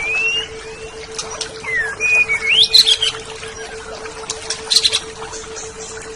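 Oriental magpie-robin (kacer) singing: a string of clear rising and falling whistles mixed with a couple of short harsh rasping notes, over a steady low hum.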